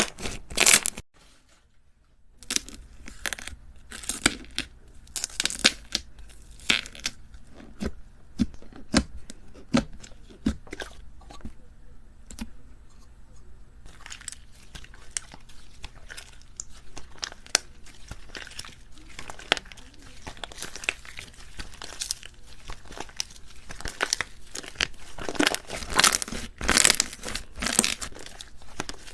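Crunchy slime being squeezed and pressed by hand, giving irregular crackling and sharp popping clicks. There is a short silent break about two seconds in, then it carries on with the sound of a new clip partway through.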